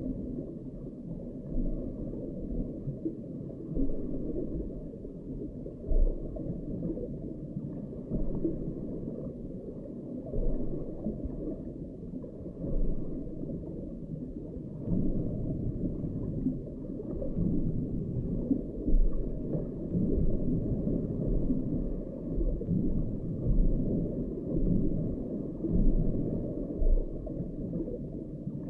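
Muffled underwater sound picked up by an underwater camera under lake ice: a dull, low rumble and gurgle that swells and fades irregularly.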